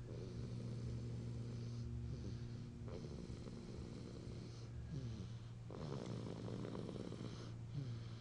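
A sleeping baby snoring in regular breaths, about one every three seconds, over a steady low hum.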